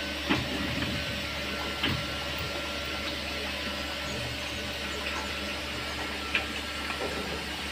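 Workshop machinery running with a steady hum, with three short knocks about a third of a second in, near two seconds in, and past six seconds in.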